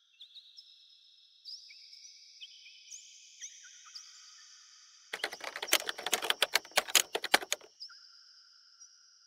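Rapid clattering of typing keys for about two and a half seconds, starting about five seconds in. Under it run faint, steady high tones that step up and down in pitch, each step opening with a short chirp.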